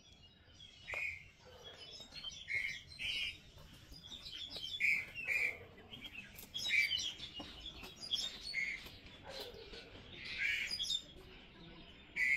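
Wild birds chirping outdoors: short, high calls repeating every second or two.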